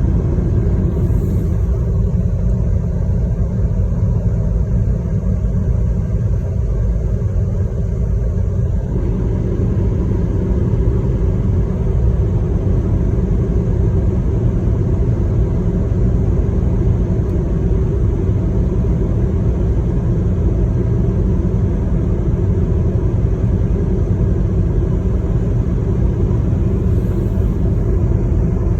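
Steady low rumble of a moving vehicle, with no breaks.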